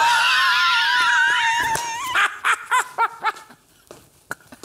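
A man's loud, high-pitched shriek held for about two seconds, followed by a run of short high yelps like manic laughter that stop about three seconds in: a comic outburst of hysteria.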